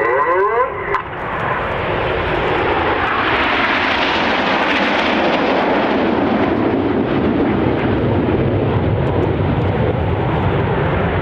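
Jet noise from the Red Arrows' formation of BAE Hawk trainer jets flying over. It swells from about a second in, is loudest around four to five seconds, then holds as a steady roar.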